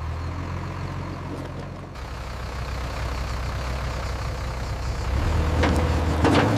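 Heavy truck engine running steadily at low speed, growing louder near the end, with a couple of short sharp noises just before the end.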